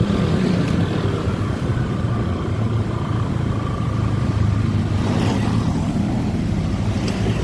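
Honda ADV 150 scooter's single-cylinder engine running steadily during a road test ride, with road and wind noise.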